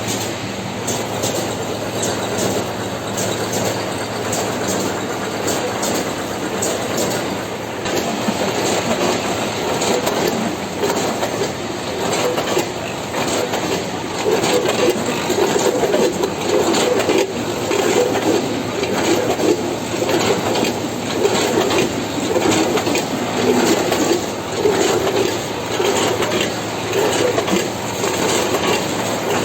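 Fully automatic vertical packaging machine running: steady mechanical clatter with sharp clicks, and from about halfway a regular surge a little more than once a second as it cycles.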